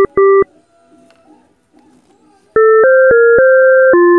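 Electronic phone alert beeps, each made of two steady tones sounding together: two short beeps at the start, then after about two quiet seconds a run of two-tone notes stepping up and down in pitch. This is a phone-style low-battery or battery-empty alert.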